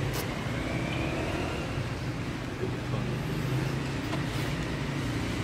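Steady low rumble of distant road traffic, with a faint rising high-pitched tone about half a second in.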